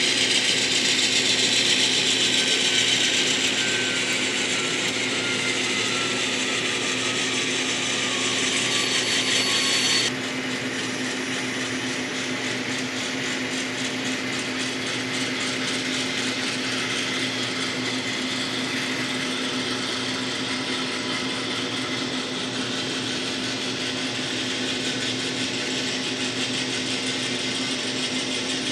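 N-scale model freight train running on the layout: a steady mechanical whirr and fine clatter of locomotive motors and small wheels on the rails, with a whine that falls slowly in pitch over the first ten seconds. The sound drops and changes abruptly about ten seconds in.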